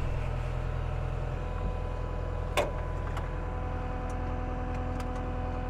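Kubota SSV75P skid steer's diesel engine idling steadily, with a single sharp click about two and a half seconds in.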